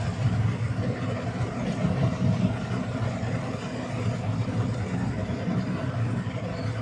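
Center-console boat's engine running steadily at slow speed, a low, even rumble.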